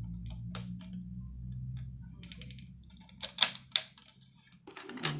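Light plastic clicks and taps from handling and fitting together the parts of a plastic 1:200 scale model airliner, with two sharp snaps about three and a half seconds in. A low steady hum runs underneath and fades out around three seconds in.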